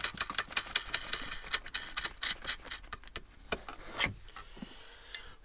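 A bolt and nut being worked by hand into a plastic armrest bracket on a van seat: quick small clicks and rubbing of metal against plastic, thinning out after about three and a half seconds.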